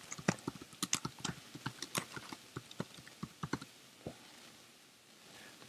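Typing on a computer keyboard: a quick run of key clicks for about three and a half seconds, then a single click about four seconds in.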